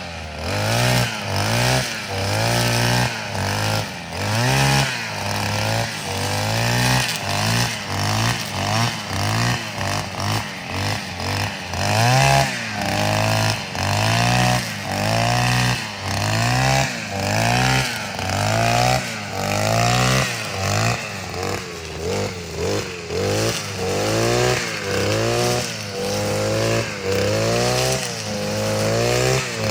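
A Kamrad 52cc two-stroke brush cutter engine is being revved over and over, the throttle opened and let off about once a second, so the pitch keeps rising and dropping back.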